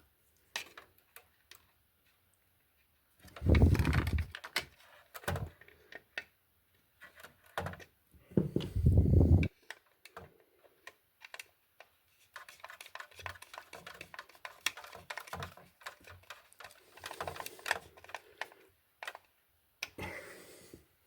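Hands working stiff copper electrical wires and a plastic wall socket: scattered clicks, taps and rattles as the wires are pushed toward the terminals, with two louder scraping handling noises early on and a dense run of small clicks in the second half.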